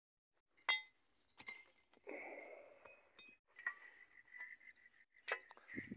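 A metal digging tool striking stones in dry, rocky soil: a few sharp clinks, the first, under a second in, ringing briefly.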